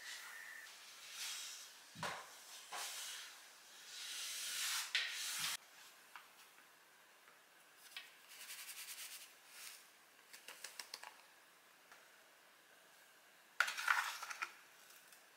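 Small household handling sounds: rustling and a couple of soft thumps, then a quick run of light clicks as a plastic tub of dried coffee grounds is handled. Near the end comes the loudest part, a small spoon clinking and scraping against the plastic tub as the grounds are scooped into a paper pouch.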